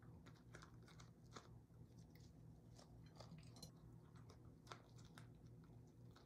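Faint crinkling and soft crackles of crisp cabbage, perilla leaves and rice paper being folded and rolled by hand on a wooden cutting board, over a low steady hum.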